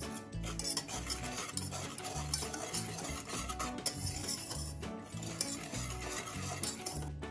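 Stirring with a kitchen utensil in a bowl: a steady scraping swish that stops abruptly near the end, over low background music.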